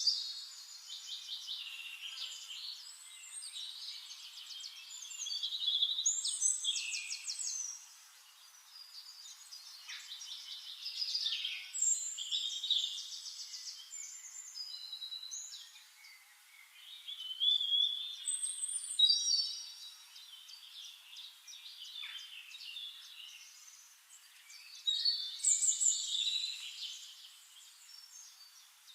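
Songbirds singing: high, rapid trills and whistled phrases that swell and fade, coming back every few seconds.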